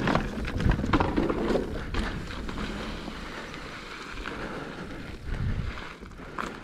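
Kona Process mountain bike rolling down a dirt trail. Its tyres and frame knock and rattle over rough ground for the first couple of seconds, then settle into a steadier rush of tyre noise that fades.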